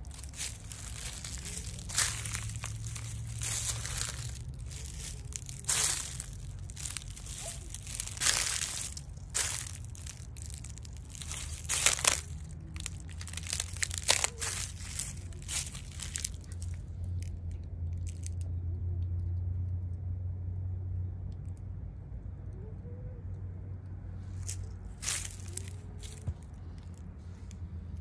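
Footsteps crunching on dry fallen leaves and wood-chip mulch, frequent through the first half and only a few in the second, over a steady low rumble.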